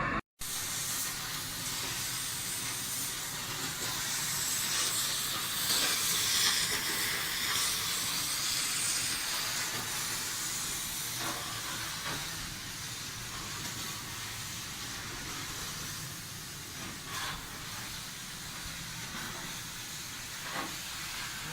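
Steam hissing steadily through a steam jet ejector, a little louder about a quarter of the way in, with a few faint knocks.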